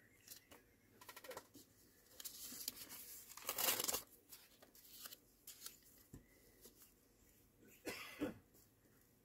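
Paper rustling as the pages of an old book are handled and turned. The longest rustle builds to its loudest near four seconds in, with a short one about a second in and another near the end.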